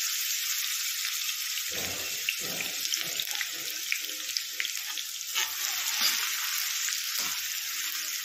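Chopped onions and green chillies sizzling in hot oil: a steady hiss with small crackling pops. A few soft low knocks come in the middle.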